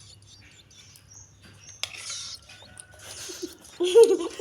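Zitting cisticola nestlings giving faint, high begging chirps while being fed, with a sharp click about two seconds in. Near the end a person's voice briefly cuts in, louder than the chirps.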